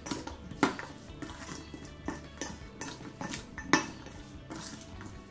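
Steel spoon clinking and scraping against a stainless steel bowl while stirring jackfruit pickle, a clink about every half second, with the sharpest ones about half a second and nearly four seconds in.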